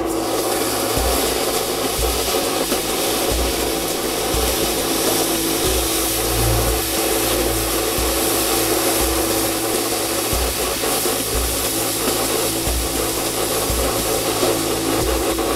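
Red-hot steel flint striker quenched in a bowl of water to harden it: a steady sizzling hiss as the water boils against the hot metal.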